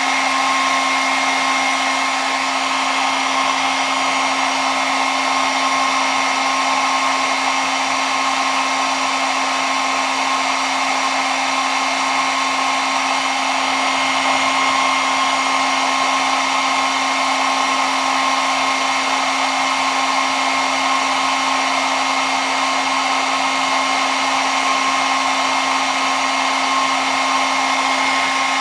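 Hair dryer running steadily: an even rush of blown air with a constant motor whine, unchanging throughout.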